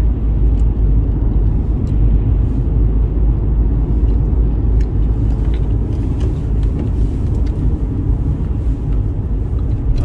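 Steady low road and engine rumble inside a moving car's cabin, with tyres running on a wet road.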